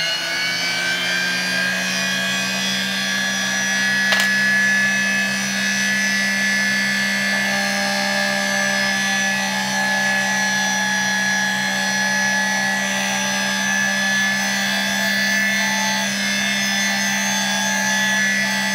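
A mini lathe running steadily at speed, its motor and drive giving a constant hum with a high whine over it, as it spins a brass rod ready for drilling from the tailstock. A single sharp click about four seconds in.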